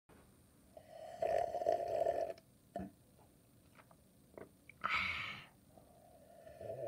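A person drinking water noisily, with loud throaty gulping sounds lasting about a second, a short click, a breathy gasp about five seconds in, and another gulp near the end.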